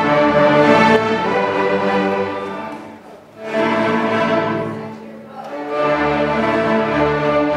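Large student string orchestra of violins, violas, cellos and basses playing sustained bowed chords in loud phrases, dropping away briefly about three seconds in and again about five seconds in.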